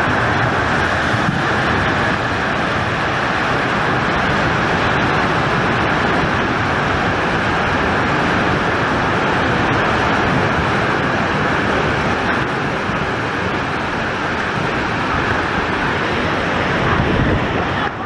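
Landslide of rock and debris pouring down a slope: a loud, steady rushing roar with no break.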